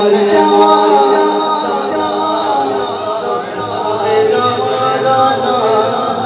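Male voice singing a Punjabi manqbat unaccompanied, amplified through a microphone, with long, wavering held notes.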